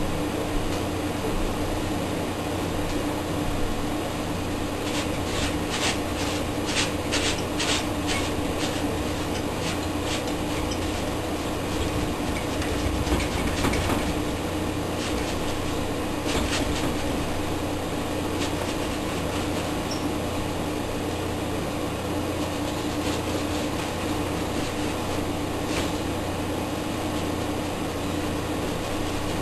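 Stiff bristle brush dabbing and scrubbing oil paint onto a stretched canvas: runs of quick dry taps, thickest a few seconds in and again around the middle, over a steady low hum.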